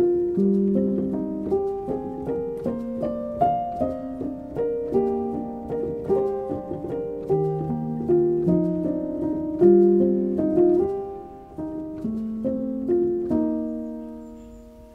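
Background piano music: a slow, gentle melody of single struck notes that fades out near the end.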